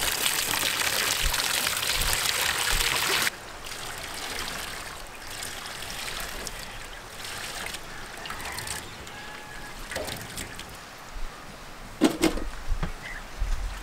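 Water poured from a steel bucket onto raw prawns in a wide steel basin: a loud splashing pour for about three seconds, then quieter trickling and sloshing as the prawns are rinsed by hand. A short knock comes about twelve seconds in.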